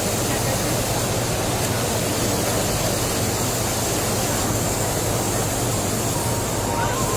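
Steady mechanical noise with a low hum, without change or rhythm.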